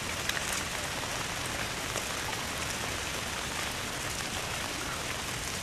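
Steady hiss and patter of falling water, with many small drop-like ticks scattered through it.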